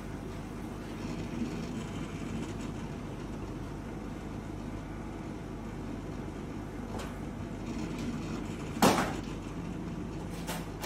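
Benchtop automatic polarimeter humming steadily while it takes repeat optical-rotation readings, with one sharp click about nine seconds in.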